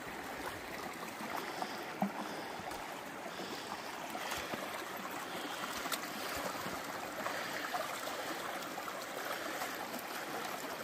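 Stream water flowing steadily, with a few faint clicks.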